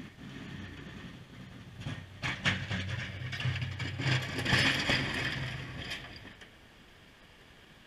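Ford F-150 pickup pushing a Fisher HT plow blade drives up and passes close by: a low engine hum that grows to its loudest about four to five seconds in, with the blade scraping and rattling over the snowy pavement, then fades away.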